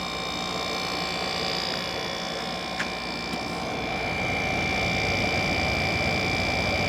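Small General Electric window air conditioner running, its fan and compressor giving a steady hum and whoosh with a few steady whining tones, very quiet and smooth. There is a single click about three seconds in.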